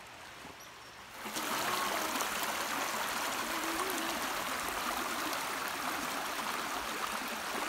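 Shallow creek running over stones and small riffles: a steady rushing water sound that comes in abruptly about a second in.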